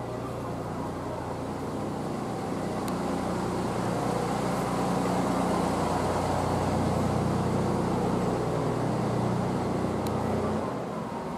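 An engine running steadily with a low hum, growing louder through the middle and dropping away suddenly about ten and a half seconds in.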